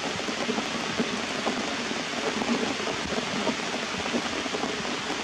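Steady rain falling on leaves and rocks, a dense even hiss of drops.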